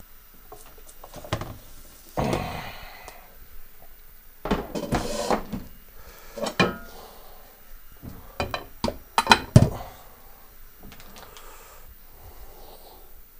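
Kitchen handling noises as a wire oven rack holding a pizza is slid out: a few scraping bursts, then a run of sharp clicks and knocks, the loudest about nine and a half seconds in.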